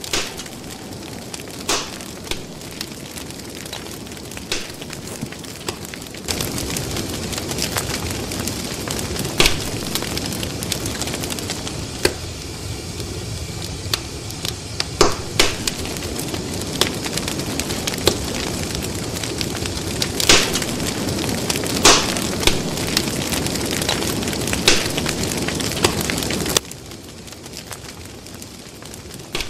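Fire crackling: a steady hiss with sharp pops and snaps every second or two. A louder layer of steady noise comes in about six seconds in and cuts off suddenly near the end.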